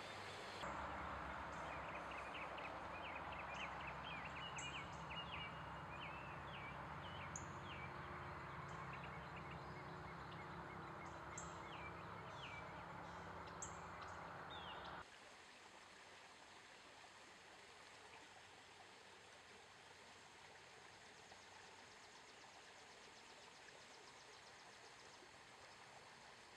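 Rural outdoor ambience: an even hiss over a steady low hum, with short high chirps repeating through the first half. About halfway through it cuts suddenly to a quieter, even hiss with no chirps.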